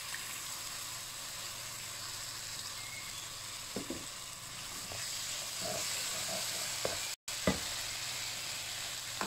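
Blended chilli and dried-shrimp spice paste sizzling in a hot non-stick frying pan just after tamarind water is poured in, with a steady hiss. A wooden spatula stirs it, giving a few short scrapes.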